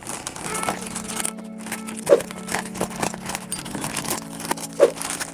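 Background music with long held notes, over the crinkle and tearing of a plastic courier bag being slit open with a box cutter, with scattered small clicks.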